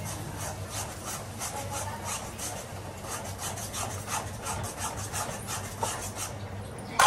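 Spatula scraping and stirring food in a kadai, in a steady rhythm of about three strokes a second, stopping about a second before the end.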